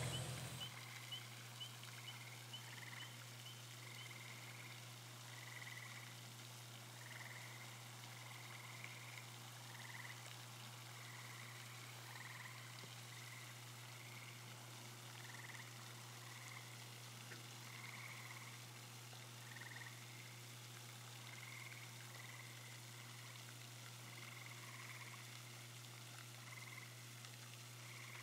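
Faint frog calls, short same-pitched croaks repeated irregularly, over a steady low hum.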